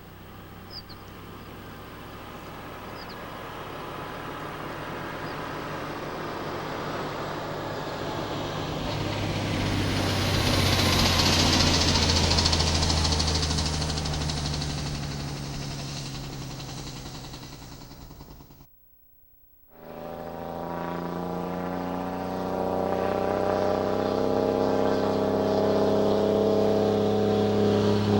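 Cummins ISM inline-six diesel truck engine running. It swells to a peak and fades over about eighteen seconds, then after a brief break returns with its note climbing steadily.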